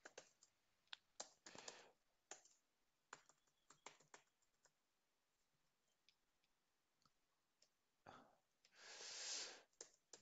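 Faint computer keyboard typing: scattered single key clicks over the first five seconds or so, then a pause, and a short soft hiss near the end.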